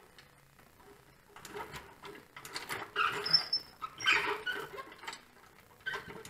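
Hydraulic floor jack being pumped by its long handle, a few strokes with creaks, squeaks and clanks as it lifts a backhoe hydraulic pump into place.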